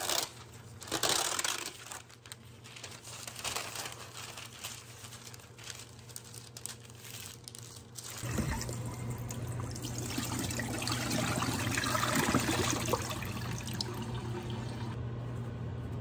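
Parchment paper crinkling and rustling as it is handled and pressed flat onto a tray. About halfway through, a kitchen tap starts running, a steady rush of water that goes on for several seconds.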